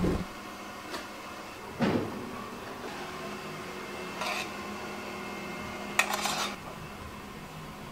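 Ceramic coffee cups and a stainless steel jug knocking and clinking on a kitchen counter, three sharp knocks in all, over a faint steady hum. The knocks come as coffee and frothed milk are poured.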